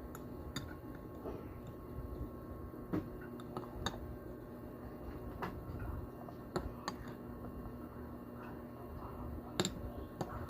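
Irregular light clicks and taps of kitchen utensils, over a faint steady hum.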